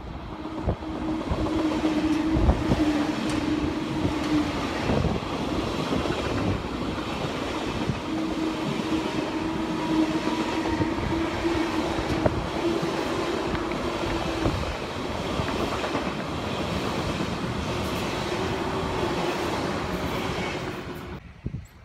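Two coupled SBB RABDe 500 ICN tilting electric trains passing through the station at speed: a steady rolling rush with many wheel clicks over the rail joints and a steady hum from the drive. The sound stops abruptly near the end.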